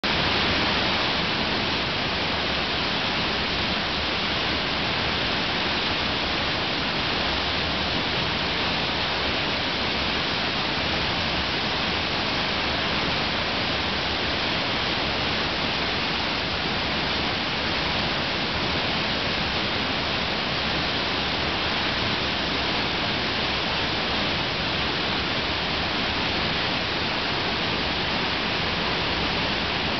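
A waterfall in heavy flow: a steady, dense rush of falling water that does not change.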